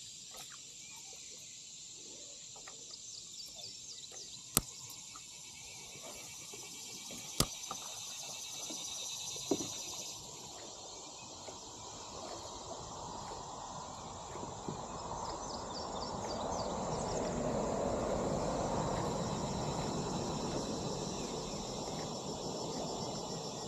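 Creekside ambience: insects trilling steadily at a high pitch, with a few sharp clicks in the first ten seconds and a rushing noise that swells up past the middle and fades again near the end.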